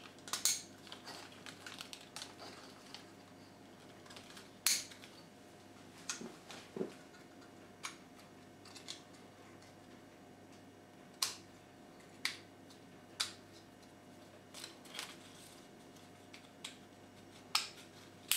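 Plastic wiring-harness connectors clicking and tapping as they are pushed into the sockets of a Candy washing machine's replacement circuit board: an irregular run of sharp clicks, a second or so apart, with a few louder ones.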